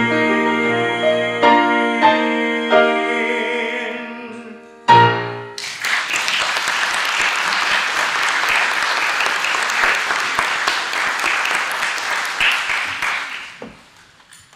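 Grand piano playing the closing bars of a song, ending on one final chord about five seconds in. Then the audience applauds for about eight seconds, and the applause fades out near the end.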